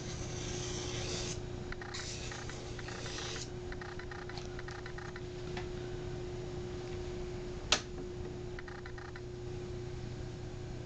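Tomz Knife Massager sharpener's motor humming steadily while a carving V-tool is ground on its spinning diamond disc: a hissing grind in two stretches over the first three and a half seconds, then light ticks. One sharp click about two-thirds of the way through is the loudest sound.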